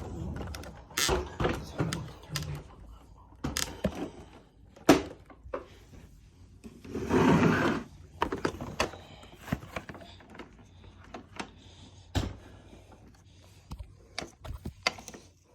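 Upright carpet cleaners' plastic housings knocking and thunking as they are tipped over onto their backs and handled: a run of scattered knocks and clunks, with a scraping rush lasting about a second some seven seconds in.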